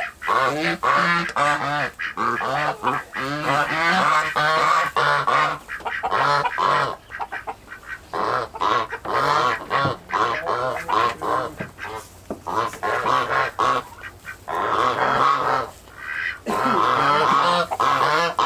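A flock of farm poultry calling continuously, many birds overlapping in quick, pitched calls.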